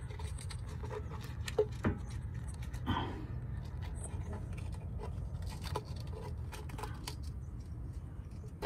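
Scattered light clicks and scrapes of a 13 mm socket being worked onto a starter bolt by feel. The socket keeps bottoming out against a cover and will not seat. A breath is heard about three seconds in.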